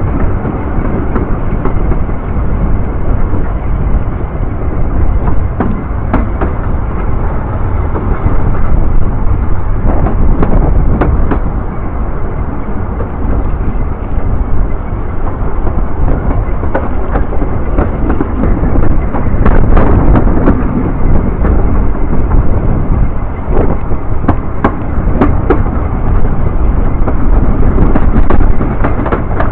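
Narrow-gauge train running, heard from an open carriage window: a heavy, steady rumble with wind buffeting the microphone, and scattered sharp clicks as the wheels pass rail joints and points.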